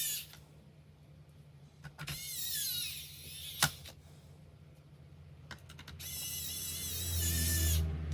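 A small electric motor whirring in two bursts, the first about a second long with its pitch sliding down and the second about two seconds long, over a steady low hum. A sharp click falls between them.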